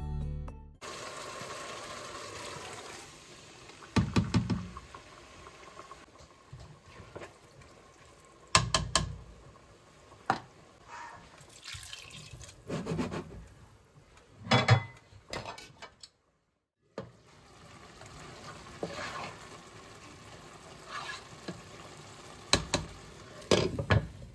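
Cooking at a pot of simmering tomato sauce: a spatula stirring and knocking sharply against the pot several times, water poured in from a glass over rice, and a glass lid clattering on near the end.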